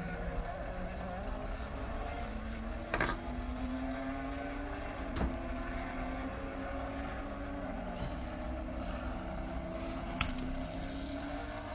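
Race car engines from a Le Mans test-day recording running in the background, holding steady notes that slowly rise in pitch. Three sharp clicks are spread through it.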